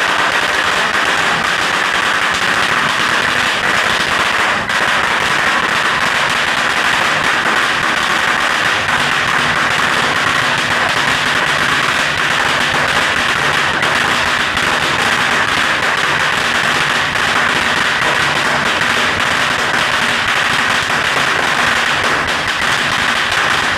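Firecrackers going off on the ground, a loud, dense run of rapid pops and crackles without a break.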